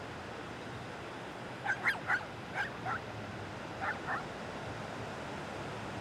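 A dog barking: a quick run of five short barks, then two more about a second later, over the steady wash of breaking surf.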